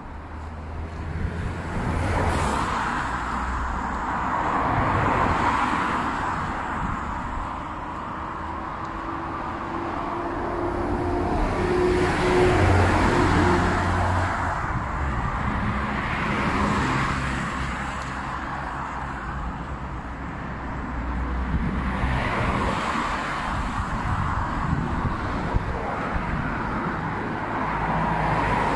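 Road traffic on the adjacent road: cars and vans passing one after another, each swelling and fading over a few seconds.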